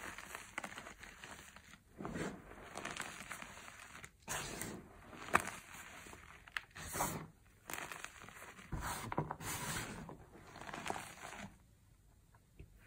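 Hands squeezing and crumbling soft gym chalk (magnesium carbonate) blocks into powder: irregular soft crunching in clusters, dying away to a quiet stretch near the end.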